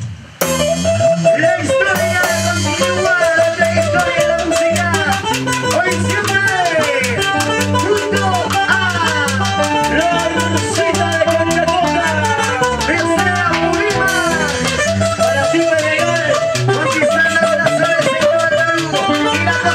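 Live band playing a fast Latin dance tune: electric guitar melody with gliding notes over a drum kit keeping a steady beat with cymbals.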